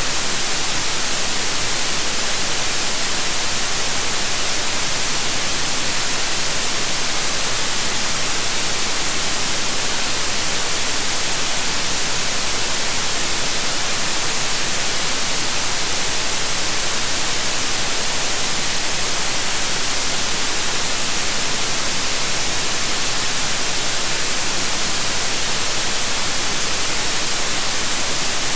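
Steady, unchanging white noise: an even hiss across the whole range, strongest in the highs, with no changes or events.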